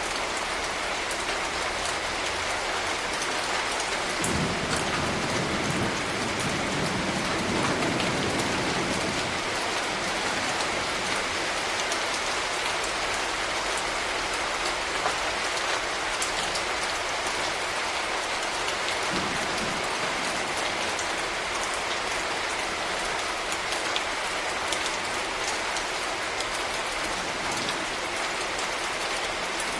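Steady rain falling, with scattered drops ticking on a hard surface. A low rumble swells under the rain from about four to nine seconds in, and briefly again later.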